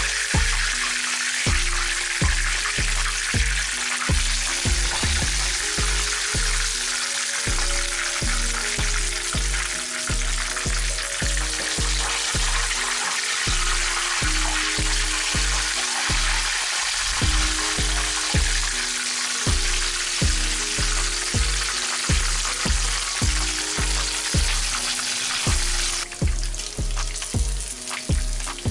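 Chicken wings deep-frying in a pan of hot oil: a steady, dense crackling sizzle. Background music with a repeating bass line plays throughout.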